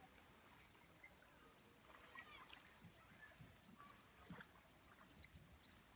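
Quiet outdoor ambience with a few faint, short bird chirps and some soft low knocks.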